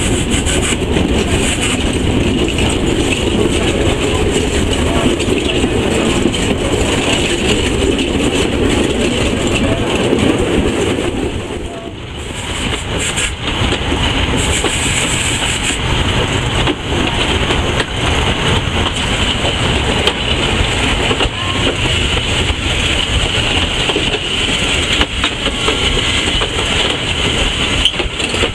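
Loud, steady noise on the footplate of a steam locomotive under way: a continuous mix of hiss and rail clatter, dipping briefly about twelve seconds in.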